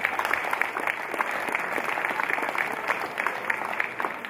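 Audience applauding, many hands clapping densely together.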